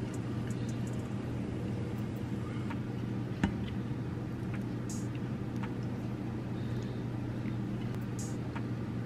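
Metal utensils clicking and tapping against a plate as food is laid onto a tortilla, with one sharper clack about three and a half seconds in, over a steady low mechanical hum.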